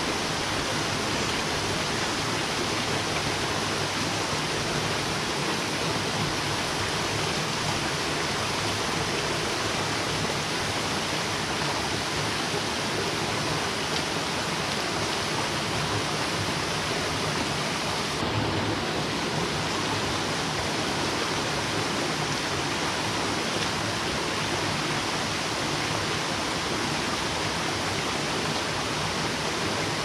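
Small waterfall and rocky stream cascading over stones: a steady, unbroken rush of water.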